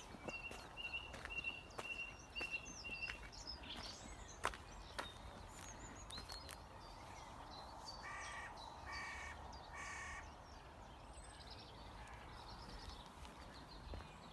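Wild birds singing and chirping throughout. Three harsh caws come about a second apart near the middle, like a crow calling.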